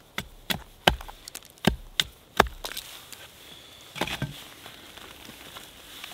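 Wood being chopped: a run of about six sharp strikes in the first two and a half seconds, then one more hit about four seconds in.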